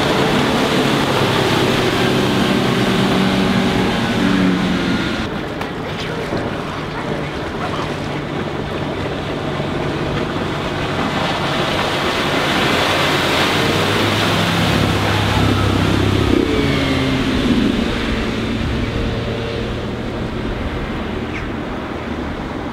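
Four Winns H200 bowrider's MerCruiser 4.3-litre V6 sterndrive running at planing speed, heard from the shore with the hull's wash hissing across the water. The engine note shifts pitch a few times, dipping about four seconds in and climbing again near the middle.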